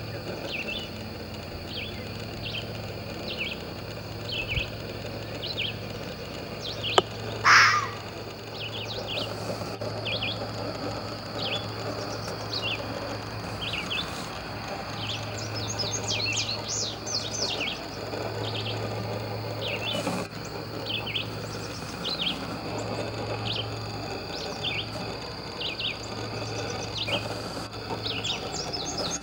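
Birds chirping over and over in short, high calls, with one much louder, sharp cry about seven and a half seconds in.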